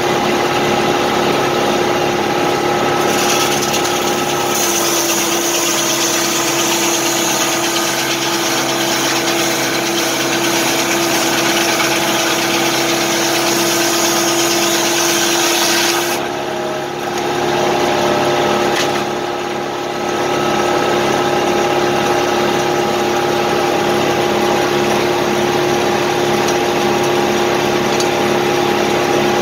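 Engine running steadily with a large circular sawmill blade spinning. A few seconds in, the blade cuts through a log with a loud high-pitched hiss and the engine note drops slightly under the load; just past halfway the cut ends and the saw runs free again.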